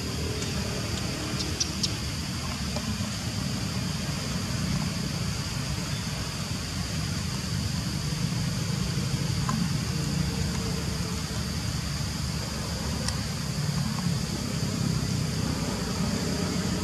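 Steady outdoor background noise: a constant high-pitched hum over a low rumble, with a couple of faint clicks about a second and a half in.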